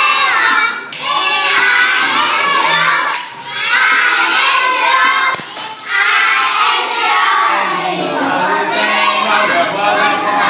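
A class of young children shouting together, in loud phrases of two or three seconds with brief breaks between them.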